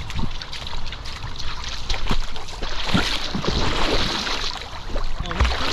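Water splashing and sloshing right at the microphone as a golden retriever puppy with a camera on its back goes into a pond and paddles, an irregular run of splashes.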